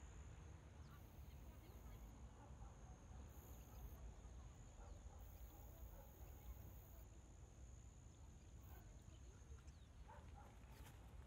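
Near silence: faint outdoor ambience, with a thin steady high-pitched tone that stops shortly before the end.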